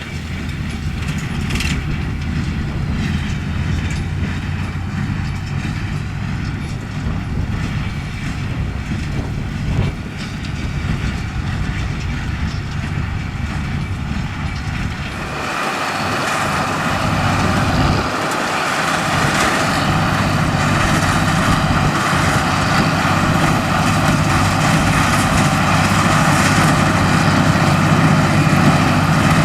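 Heavy farm machinery engine running steadily. About halfway through the sound changes abruptly, becoming louder with more high-pitched mechanical clatter.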